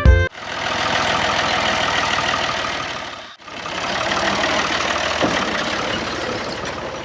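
Small motor of a homemade miniature machine running with a fast whirring rattle, in two runs of about three seconds each with a brief cut between them.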